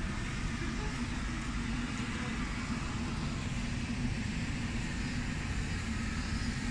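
Steady road traffic on a city street: vehicles running by with a low, even hum.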